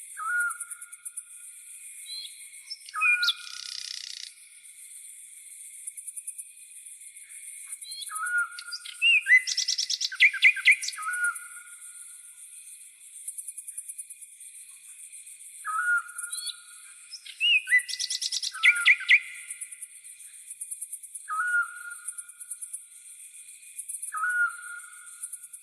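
A steady, very high insect trill runs throughout, with weaker steady insect bands beneath it. A bird repeats a short whistled note every few seconds. Twice, about a third and two thirds of the way in, there are louder bursts of quick bird song.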